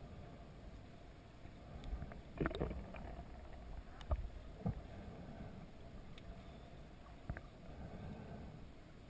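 Water sloshing around a camera held in the water while snorkelling, with a few short knocks, the loudest about two and a half seconds in.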